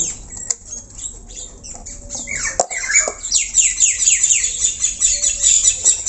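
Many caged birds chirping and twittering at once, rapid high-pitched falling notes that grow denser from about three seconds in.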